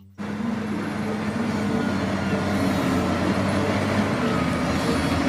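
Heavy vehicle engine running steadily, a constant low rumble with a hum, starting just after a brief silence.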